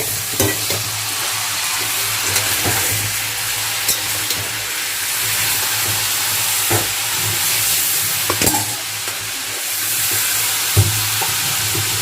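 Chicken pieces sizzling steadily as they fry in hot oil and ghee in a kadai, with a utensil knocking against the pan a few times as the pieces are stirred.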